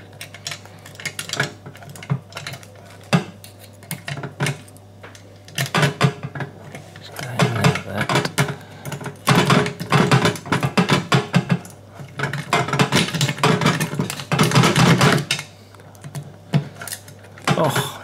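A metal rake pick is scrubbed in and out of a safe's wafer lock under a tension wrench, making quick scratchy clicking and rattling in bursts, busiest from about six to fifteen seconds in. The wafers audibly pop back, which is taken as a sign that a few of them have been set.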